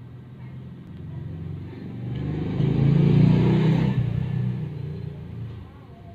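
A motor vehicle passing, its engine growing louder to a peak about three seconds in and then fading away.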